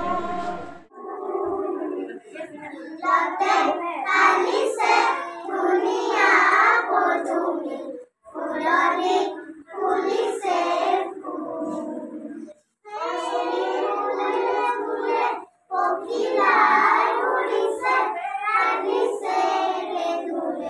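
A group of young children singing together in phrases, with short pauses between lines. Before that, women's singing cuts off about a second in.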